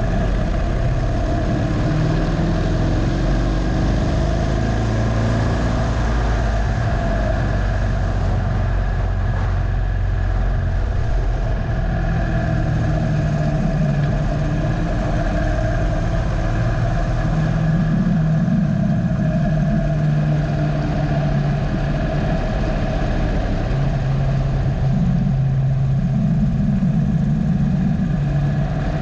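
2015 Harley-Davidson Dyna Low Rider's air-cooled V-twin engine running under way, its note stepping up and down several times as the throttle opens and closes, with wind rush over the camera.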